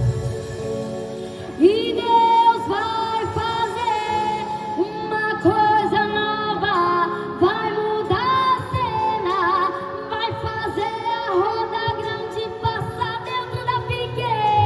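A woman singing a gospel song with vibrato over keyboard and band accompaniment; her voice comes in about a second and a half in.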